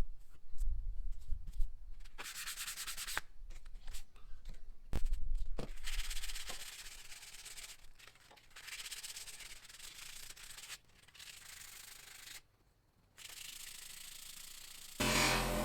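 Hand sanding of a chisel's metal on an abrasive, in several stretches of rubbing strokes with short pauses and a few light clicks. Near the end a louder, steady sound with a low hum comes in.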